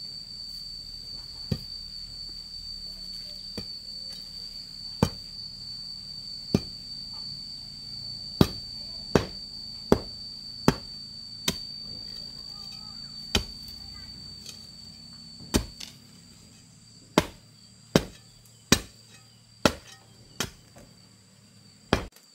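A tool striking something hard about sixteen times, as sharp irregular blows that come faster toward the end. Under the blows runs a steady high-pitched insect drone that stops about two-thirds of the way through.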